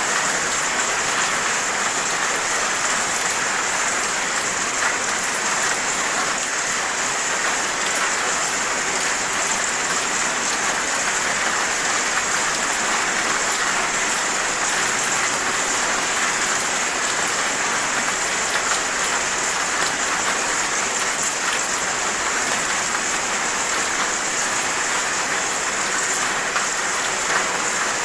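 Steady rain falling, an even hiss with scattered individual drops hitting a surface.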